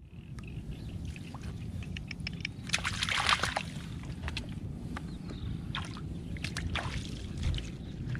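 Shallow muddy water in a flooded grass field sloshing and splashing in short irregular bursts, busiest about three seconds in, over a steady low rumble.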